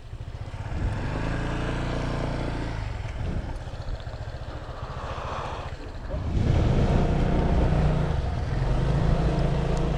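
Motorcycle engine running under way, pulling off and picking up about a second in, easing back midway and getting louder again from about six seconds in, over a steady hiss.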